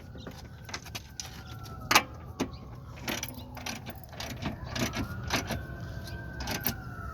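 Scattered metallic clanks and knocks from tools and parts during work on a car's front suspension, with a faint whine that rises and falls twice.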